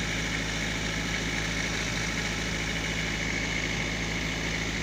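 Generator engine running steadily, a constant low hum with no change in speed.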